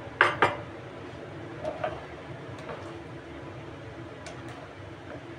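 Two sharp knocks of a cooking utensil against a frying pan, then a slotted spatula stirring thick mushroom cream sauce, with a few faint light ticks over a low steady background.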